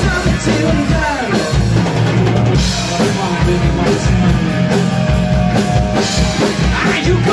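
Live rock band playing loudly: a steady drum-kit beat with bass and electric guitar.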